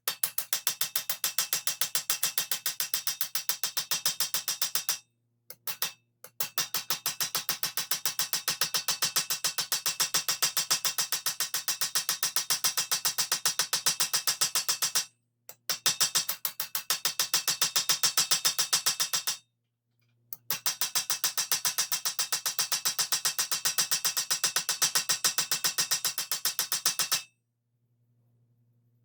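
Hammer with a slightly curved face striking a steel armour lame in rapid, evenly spaced blows, in long runs broken by three short pauses and stopping near the end. The strikes peen the metal around a worn, reamed-out rivet hole to push it back in and close the hole up.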